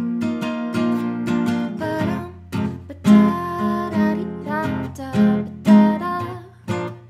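Acoustic guitar strumming chords in an instrumental passage of a song, stroke by stroke with short gaps between.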